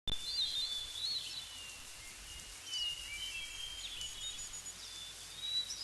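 Birds chirping and whistling, several short high calls overlapping, some sliding in pitch, over a faint steady hiss.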